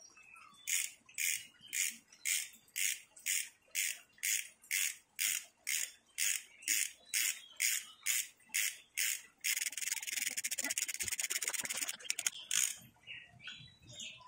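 Ratchet wrench clicking on each backswing, about two strokes a second, as the nut on top of the shock absorber's strut mount is tightened. About nine seconds in it turns into a fast continuous run of clicks for a couple of seconds, then a couple more single strokes. The nut is only snugged down for now, to be fully tightened later.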